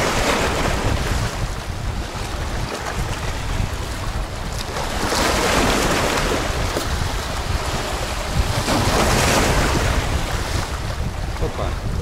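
Black Sea waves washing in and breaking over shoreline boulders, swelling in several surges. Wind buffets the microphone with a low rumble.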